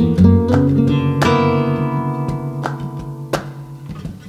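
Acoustic guitar music, plucked and strummed notes ringing out, growing quieter toward the end.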